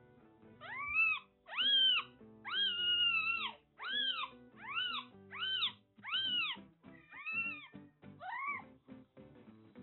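Newborn kitten crying, about nine high, rising-and-falling mews one after another, one of them longer, calling to be fetched by its mother.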